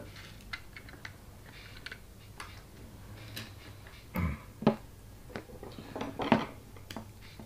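Scattered light clicks and taps of small RC kit parts and hand tools being picked up and handled on the work mat, with a couple of louder knocks about four and six seconds in.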